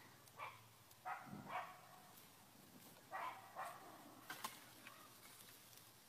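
A dog barking, about five short barks, with a sharp crack about four seconds in.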